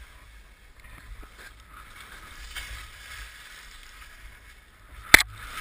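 Skis sliding and scraping over packed snow in a steady hiss, with low rumble on the camera. A single sharp knock about five seconds in, then louder scraping.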